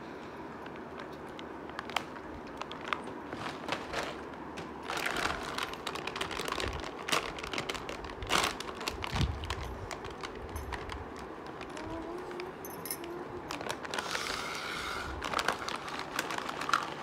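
Lay's crisp packet crinkling and crackling as it is handled and torn open, then crisps tipping out onto a plate near the end.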